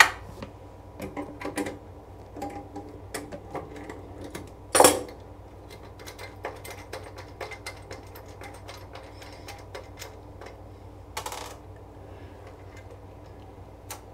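Small metallic clicks and taps of the nuts and washers being worked off a toilet's floor bolts by hand, freeing the toilet from the floor. Two louder knocks come about five and eleven seconds in.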